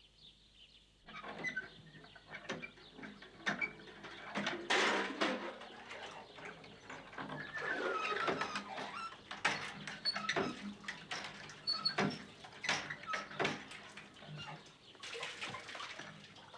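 Sound effects of water being drawn at a well: a run of clanks and knocks with water splashing, and a short squeak near the middle. It starts about a second in.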